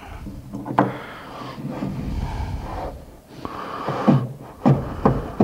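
Stanley rabbet plane, its front taken off so that it works as a corner plane, scraping dried glue out of an inside corner in several short strokes, with a pause about three seconds in.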